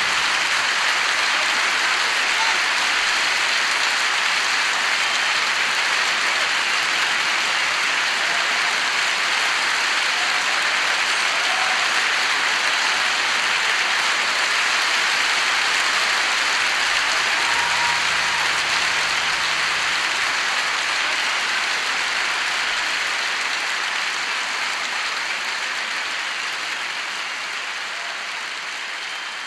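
Concert audience applauding steadily, the sound gradually fading over the last several seconds.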